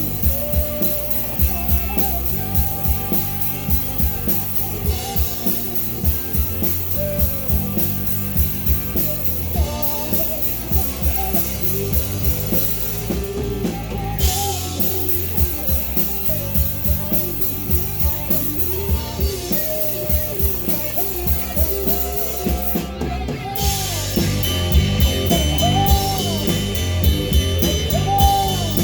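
Live rock band playing a song: drum kit, electric guitars and singing. The drums and cymbals get louder and busier about three quarters of the way through.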